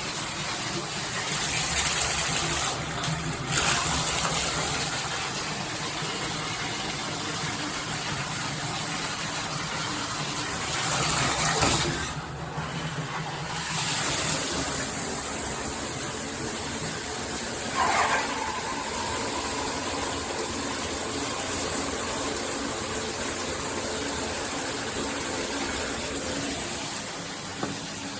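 Handheld shower head spraying water at high pressure onto a bathtub, a steady rushing hiss that swells and dips briefly as the spray is moved about. A short squeak sounds near the middle.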